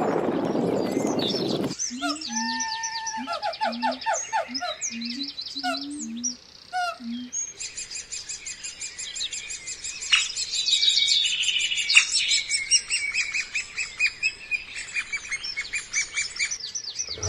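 A noisy sound that cuts off about two seconds in, then birds chirping: first a run of quick repeated calls, then many high chirps overlapping.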